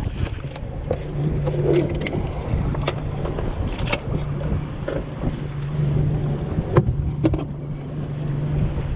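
Skiff outboard motor running steadily under way, with scattered knocks of the hull hitting rough chop and wind buffeting the microphone.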